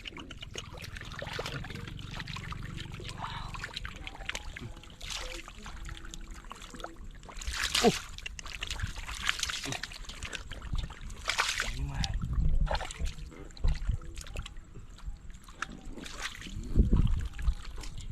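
Water splashing and sloshing in shallow field water, with repeated sudden splashes, the loudest about eight seconds in and near the end.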